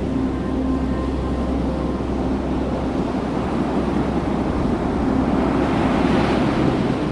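Ocean surf washing on a beach, with wind noise on the microphone; a wave swells and breaks about six seconds in.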